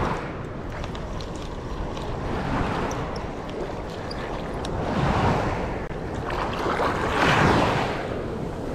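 Water rushing and splashing along the hull of a fast-moving boat, with wind buffeting the microphone. The rush swells louder twice, about five and seven seconds in.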